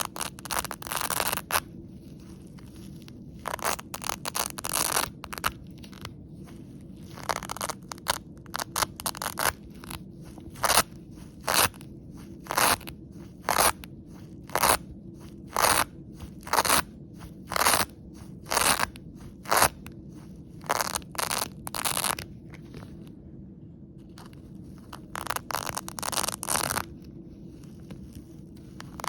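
Hook-and-loop (Velcro) strips ripped apart again and again, each a short crunchy rip. A run of sharp rips about one a second through the middle, with a pause near the end before more rips.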